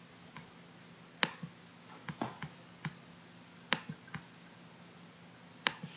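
Computer mouse clicking: about seven sharp, separate clicks at irregular intervals, the loudest a little over a second in, over a faint steady low hum.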